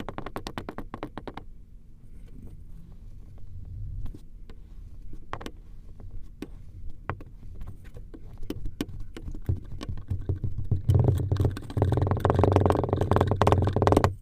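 Knife cutting through kinetic sand: a dense crunching crackle of fine clicks, sparse in the middle and loudest and thickest over the last three seconds, then cutting off suddenly.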